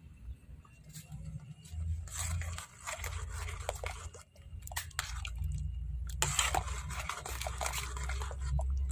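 Ladle stirring a sauce in an aluminium pot: irregular scrapes and clicks of the ladle against the pot, over a steady low rumble.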